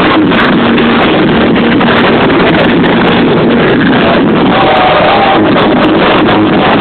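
Loud amplified live music heard through a phone's microphone in the crowd, overloaded and muddy, running steadily throughout.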